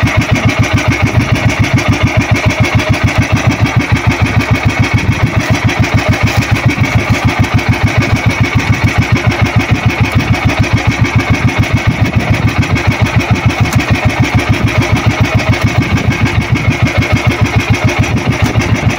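Small outrigger fishing boat's engine running steadily: an even, rapid pulsing with a steady high whine above it.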